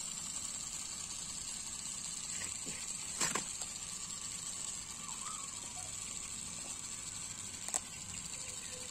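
Quiet background noise: a steady high hiss with two short clicks, about three seconds in and near the end.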